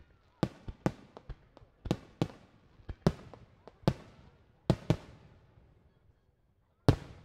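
Aerial fireworks shells bursting in a rapid, irregular string of sharp bangs, each trailing off in an echo. A short lull comes near the end, then one more loud bang.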